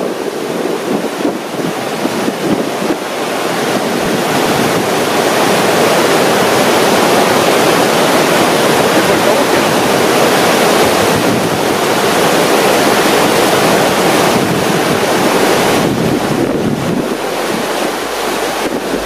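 Whitewater of a large river rapid rushing steadily through a surfing hole, getting somewhat louder about four seconds in, with wind noise on the microphone.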